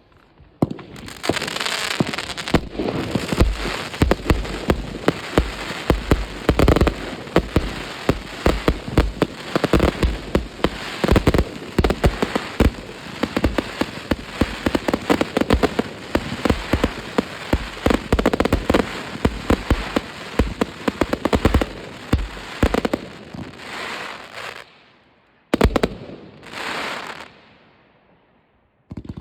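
New Year's Eve fireworks: a dense, continuous barrage of bangs and crackling that dies away about 25 seconds in, followed by one sharp bang and a short burst before it goes quiet.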